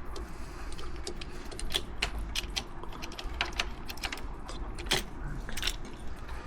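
A heavy-duty camera clamp being handled and undone on a motorcycle handlebar: a string of sharp clicks and light metallic rattles, irregular, over a low steady rumble.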